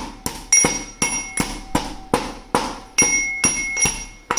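Pestle pounding cloves and black peppercorns in a small mortar, steady strikes about three a second, each with a brief ringing tone. The spices are being coarsely crushed so they release their juice quickly. The pounding stops near the end.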